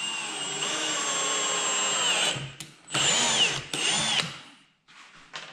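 Milwaukee M18 FUEL FPD brushless drill-driver whining as it drives a 65 mm self-tapping screw into a wooden block, in two runs. The first lasts about two seconds; after a short pause comes a second, shorter run whose pitch dips and comes back up. The screw goes in easily on clutch setting 4.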